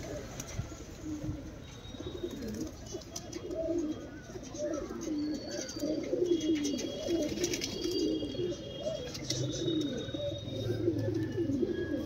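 A flock of domestic pigeons cooing, many low wavering coos overlapping throughout.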